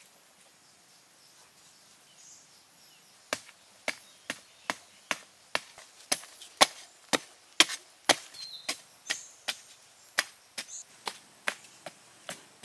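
A long-handled spade chopping down into hard, dry earth, about two strikes a second, starting about three seconds in. Each blow is a sharp thud as the blade bites into the soil to loosen it for digging a pit.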